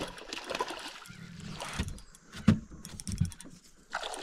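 A few knocks and bumps on a small fishing boat, about a second apart, as gear is handled aboard.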